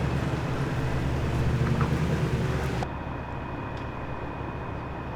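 A motor running with a steady low rumble. About three seconds in, the sound abruptly becomes quieter and duller.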